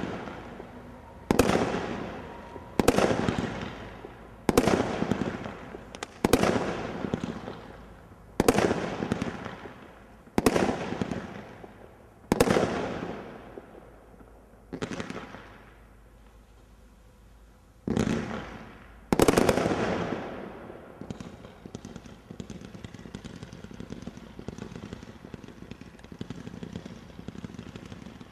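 Tri Fawkes 66-shot combination roman candle firework cake firing: about ten loud shots, one every couple of seconds, each trailing off over a second. Near the end it switches to a quieter, rapid run of small shots.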